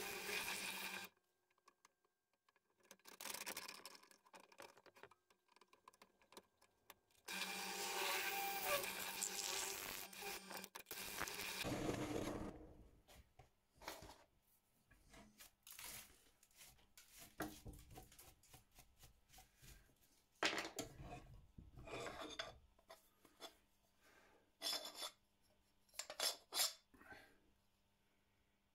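A power tool running in two spells, each a few seconds long with a steady motor hum, stopping about a second in and again about eleven seconds in; after that, a scattering of separate clicks and knocks.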